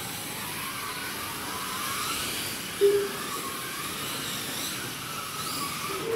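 Slot cars' small electric motors whining along a track, the pitch rising and falling as the cars speed up and slow for the corners. A short, loud tone cuts in briefly about three seconds in.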